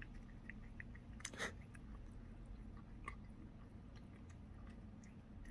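An elderly cat eating soft wet pâté food from a dish: faint, irregular wet chewing and licking clicks, with one louder smack about a second and a half in.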